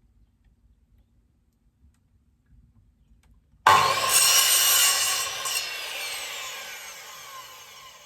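Power saw cutting a piece of wood trim, starting suddenly and loudly almost four seconds in, then the blade spinning down with a falling whine that fades toward the end.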